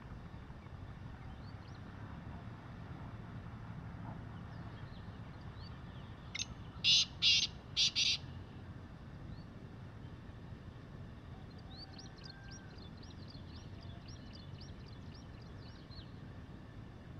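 Black francolin calling once: a short lead-in note, then a quick run of four loud, harsh notes lasting under two seconds, about halfway through. Faint high chirps of small birds follow in the background.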